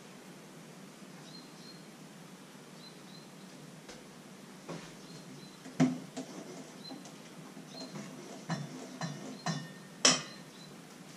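Kitchen utensils and dishes clinking and knocking: a handful of sharp separate knocks in the second half, the loudest near the end.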